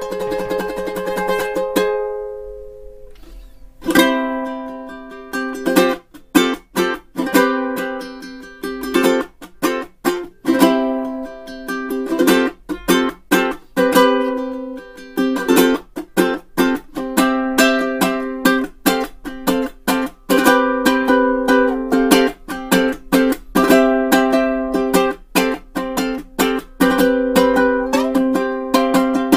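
Background music of strummed chords. A chord rings out and fades, there is a short pause, and the strumming starts up again about four seconds in and keeps a quick rhythm.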